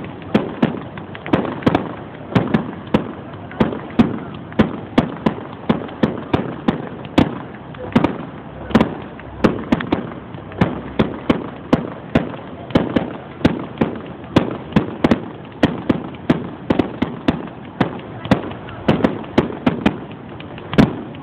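Fireworks display: aerial shells bursting in a fast, unbroken series of sharp bangs, about two a second, each trailing off briefly.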